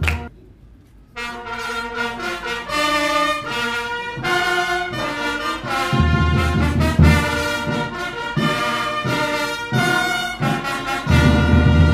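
Brass band music: trumpets and trombones playing sustained notes and chords, starting about a second in and growing fuller and heavier in the bass toward the end.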